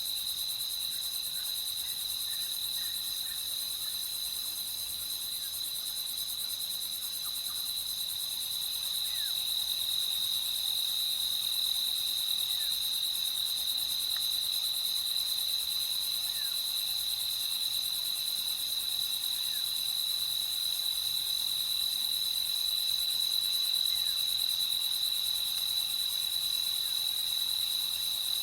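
Chorus of night insects trilling steadily in one continuous high-pitched drone, with a few faint short chirps scattered beneath it.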